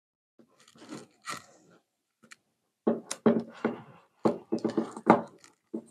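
Handling noise of a rigid cardboard drone box: soft rubbing and scraping, then from about three seconds in a quick run of sharp taps and knocks as the box is worked open.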